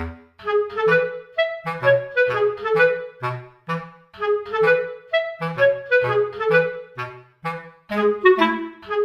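Background music: a bouncy tune of short, detached woodwind notes, clarinet-like, over a plucked-sounding bass line.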